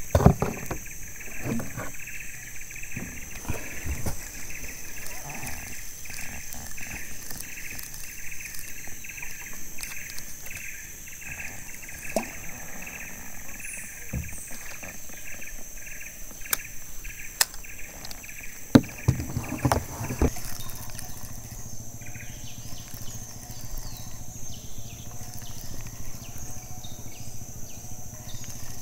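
A pulsing chorus of insects, chirping in an even rhythm over a steady high buzz, with a few scattered knocks and clatters of handling gear. About twenty seconds in, the chirping rhythm stops and a low steady hum takes over.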